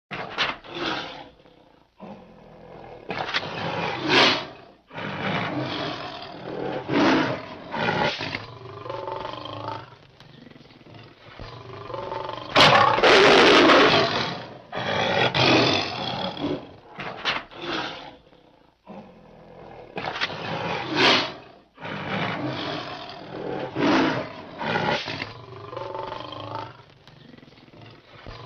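Big-cat roars used as cave tiger sound effects: a run of about ten roars broken by short pauses, the longest and loudest about halfway through.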